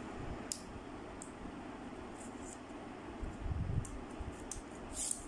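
Light clicks and small rattles from a 3110 tripod's metal legs and leg clips as they are handled, extended and spread, with a few soft low knocks a little past halfway.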